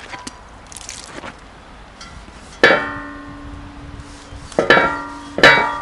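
Steel saj pan made from a harrow disc clanking as it is wiped out with a cloth. Three sharp metallic knocks, the first about two and a half seconds in and two more near the end, each leaves the disc ringing like a gong, fading slowly.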